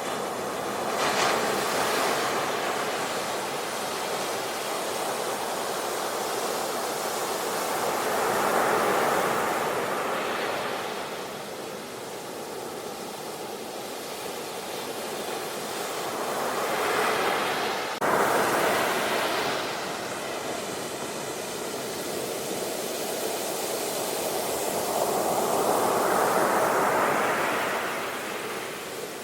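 Sea surf: waves breaking and washing up the shore in slow surges that swell and ebb every several seconds, over a steady hiss of water.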